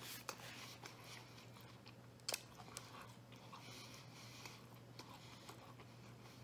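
Faint mouth sounds of a man chewing food with his mouth closed: soft smacks and ticks, and one sharper click a little over two seconds in, over a faint steady low hum.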